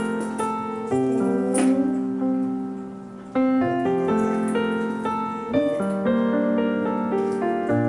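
Background piano music: a gentle melody of held chords with a short pause about three seconds in.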